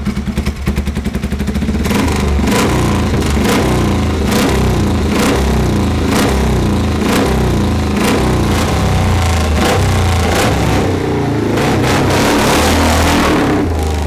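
Jawa 500 single-cylinder speedway engine, running on methanol, catching and firing up. Its beats quicken over the first two seconds, then it runs loud and is revved, with sharp cracks about once a second.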